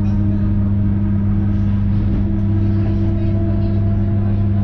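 Electric commuter train heard from inside the carriage while running: a loud, steady electric hum with a deep drone over the rumble of the running gear, and a higher tone that rises slowly in pitch.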